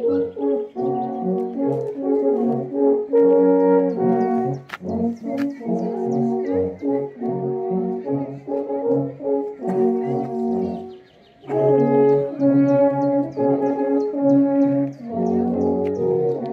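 Alphorn ensemble playing a slow piece in several parts, held notes that move together in chords. The horns stop for a moment a little past halfway, then come in again together.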